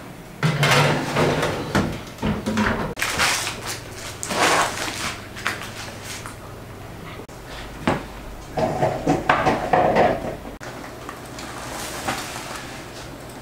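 Metal baking tray clattering and scraping as it slides into an oven and is set down, with baking paper rustling under sheets of sponge cake. A string of separate handling noises with short pauses between them.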